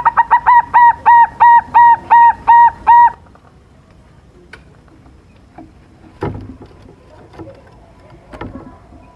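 Young silver zebra dove (perkutut) cooing its song: a run of about eleven clear notes, quick at first and then slower and longer, ending about three seconds in. A few soft knocks follow.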